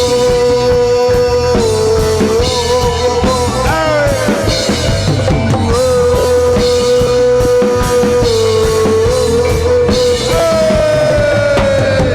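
A live reggae band plays: steady drums and bass under a long held melody line that wavers and slides in pitch.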